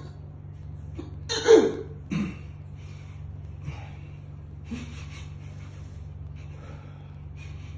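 A man's sudden involuntary gasps: a loud one about a second and a half in, a shorter one just after, then fainter breaths. They come from spasms of his upper body and vocal cords, with shortness of breath. A steady low hum runs underneath.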